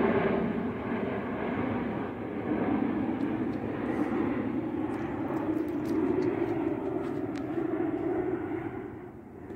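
Twin-engine jet airliner flying overhead: a steady jet engine rumble that drops away near the end.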